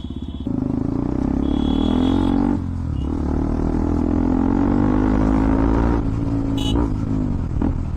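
KTM Duke 200's single-cylinder engine through a slip-on Akrapovic-style exhaust with no dB killer, accelerating: revs climb, dip briefly at a gear change about two and a half seconds in, climb again, then fall off around six seconds.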